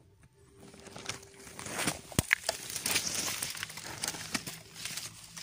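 Leaves and brush rustling and crackling close by, with scattered sharp clicks and knocks, starting about half a second in after near quiet.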